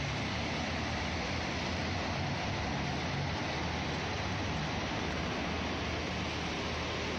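Steady town-street background noise: an even hiss with a low rumble underneath and no distinct events.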